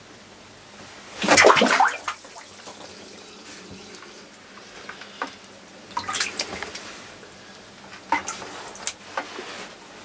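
A loud splash of water lasting under a second, about a second in, as a pike spear plunges through the spearing hole in the ice. Weaker splashing follows around the middle, then a few sharp knocks.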